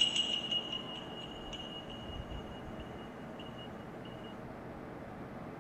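A high, steady ringing tone dies away over about the first second, with faint traces until about four seconds in, leaving a steady low hiss.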